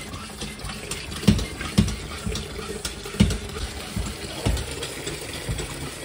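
Water running out of a Worcester boiler's flat expansion vessel into a bucket as the vessel is pumped back up with air, with about five irregular low thumps from the pump strokes.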